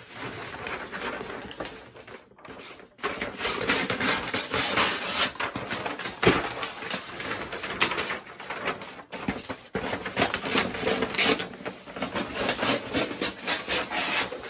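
Brown butcher paper being pulled off its roll and handled, crinkling and rustling with scattered knocks and taps on the table. It gets louder about three seconds in.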